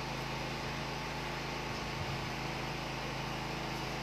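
Steady background noise: an even hiss with a low, constant hum underneath, unchanging throughout.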